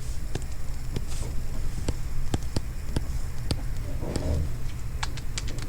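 A dozen or so light, irregular clicks over a low steady hum.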